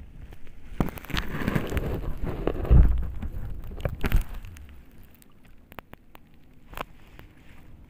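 Rustling and knocking of a handheld phone being moved, with a heavy bump about three seconds in, then scattered light clicks.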